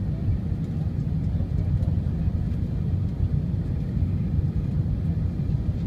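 Steady low rumble inside the cabin of an Airbus A320-232 on final approach with flaps extended: its IAE V2500 engines and the airflow over the wing, heard from a window seat.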